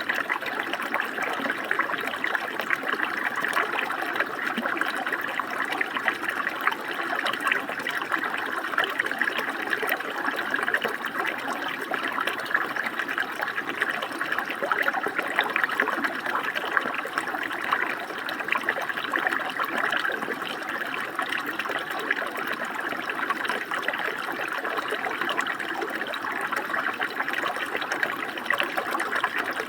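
Flowing water running steadily, a continuous rushing splash without breaks.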